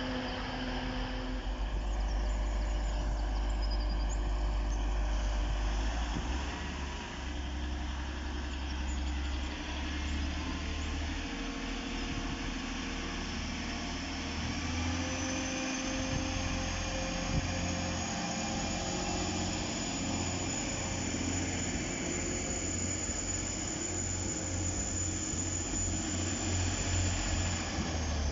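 Diesel train engine running steadily with a low rumble. A thin high whine comes in about halfway through and holds until near the end.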